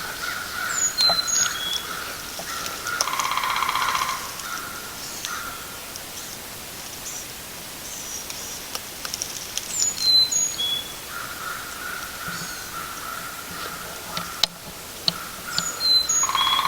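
Wild birds calling at dawn. A songbird repeats the same short, high whistled phrase three times, and a lower call with a fuller tone sounds about three seconds in and again near the end.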